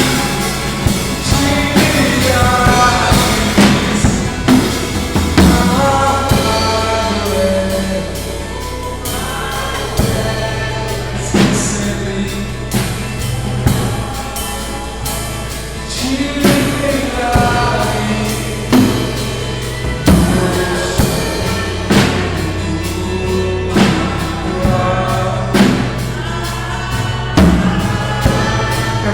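Live worship song: a male voice singing over acoustic guitar and a drum kit with steady drum and cymbal hits, recorded through a phone's microphone.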